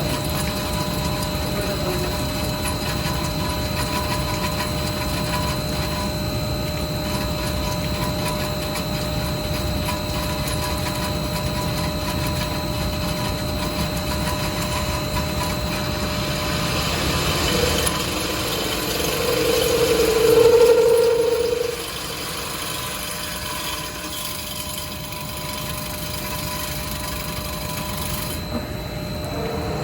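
CNC drilling special-purpose machine running, a steady mechanical hum with several steady whining tones. About two-thirds of the way through a louder tone swells for a few seconds and then stops, after which the machine runs more quietly.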